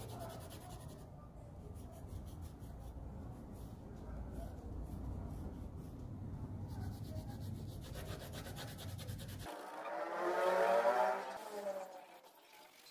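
Colored pencil shading on paper: a steady, soft scratchy rubbing. About ten seconds in, a louder wavering call cuts in for about two seconds.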